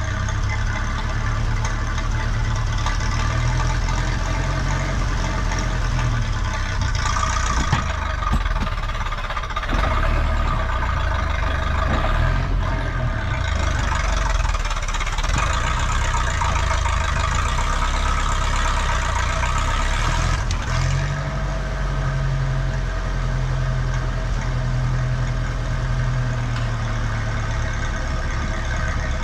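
Ferguson TE20 tractor engine running steadily, its note changing about two-thirds of the way through.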